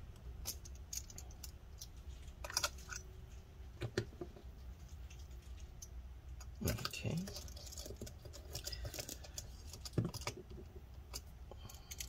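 Light, scattered clicks and taps of small screws and a screwdriver against a laptop's metal hard-drive bracket and plastic base as the bracket screws are put back in, with a couple of louder knocks past the middle.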